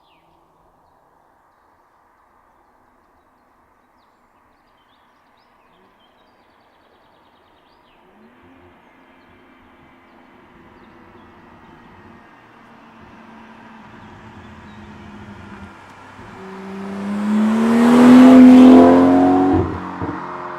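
BMW 440i's turbocharged inline-six with an M Performance sport exhaust, approaching from far off and accelerating past. Its pitch climbs as it comes closer, it is loudest a couple of seconds before the end, then it drops off suddenly as it goes by.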